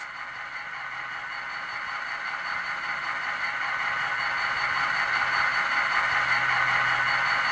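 ESU LokSound sound decoder in an HO-scale EMD SD45 model playing the stationary locomotive's running sounds through its small onboard speaker: a steady mechanical hiss and hum that slowly grows louder.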